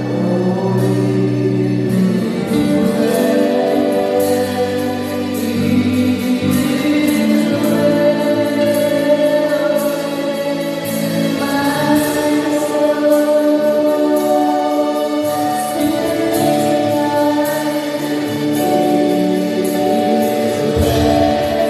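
Gospel worship song sung by a church worship team, the voices holding long notes over the music.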